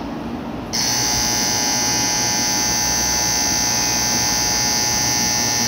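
Shinkansen platform departure bell: an electronic bell ringing as a steady buzzing tone, starting abruptly about a second in and cutting off suddenly after about five seconds. It signals that the train is about to depart.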